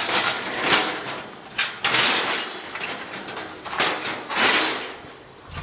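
Scaffolding and scaffold planks being dragged and shifted into position, rattling and scraping in several irregular bursts.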